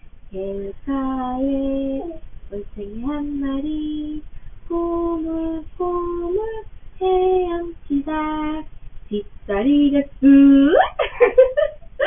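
A woman singing a children's song in phrases of held notes. Near the end a voice slides quickly upward, followed by short, high, choppy vocal sounds.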